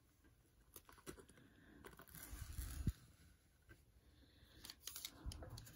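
Faint handling of trading cards: a few light clicks and soft scraping as cards are set into clear acrylic card stands on a tabletop.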